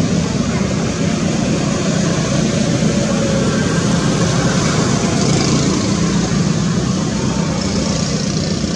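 Steady, loud rumbling background noise with no distinct events.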